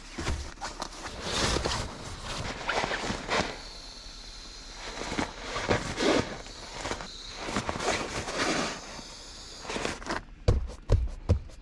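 Footsteps walking, an irregular series of scuffing steps, with a quick cluster of sharp clicks near the end.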